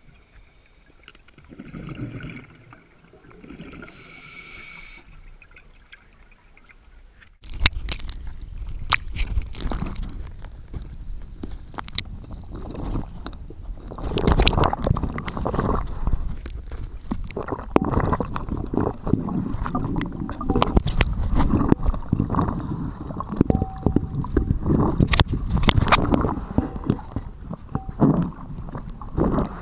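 Underwater sound heard through a diving camera's housing: short bursts of a scuba diver's exhaled bubbles. About seven seconds in it gives way suddenly to a much louder, continuous bubbling rumble, with many knocks and clicks against the housing.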